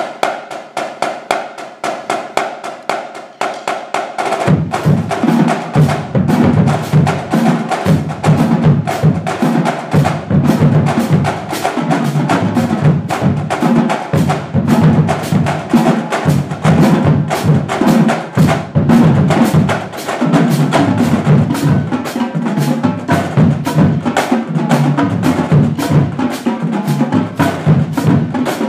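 Marching drumline playing a cadence: rapid, sharp snare and tenor strokes open alone, and about four and a half seconds in the bass drums join with heavy low hits as the full line plays on.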